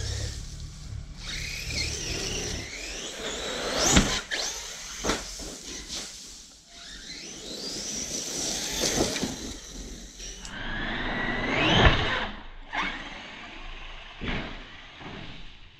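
Hobao Hyper MTX electric RC monster truck on 8S power, its brushless motor whining up and down in pitch as it is driven hard in bursts. Two loud thumps, about four seconds and about twelve seconds in, with smaller knocks between.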